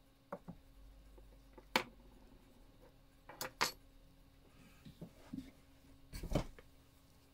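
Small metal tools and parts being put down and handled on a workbench: a scattered series of light clinks and taps, the loudest a little under two seconds in and a short cluster near the end.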